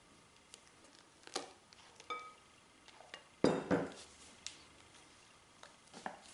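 Spatula tapping and scraping against a glass mixing bowl during folding: scattered light clicks, a brief glassy ring about two seconds in, and two louder knocks about three and a half seconds in.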